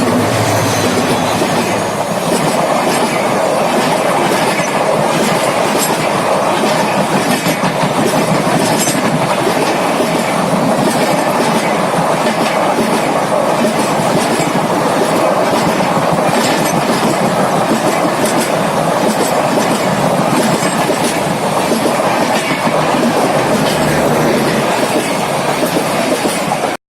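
Duronto Express passenger train passing close by at speed: a steady, loud rush with the rapid clickety-clack of its wheels over the rail joints.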